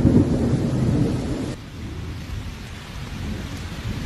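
Heavy rainstorm: a dense rush of rain under a deep rumble. It drops off abruptly about one and a half seconds in and comes back strongly at the very end.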